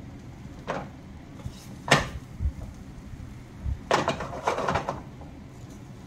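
Silicone spatula scraping and tapping against a nonstick frying pan as egg cooks in it: a few short scrapes, the loudest about two seconds in, then a quick cluster of them around four seconds.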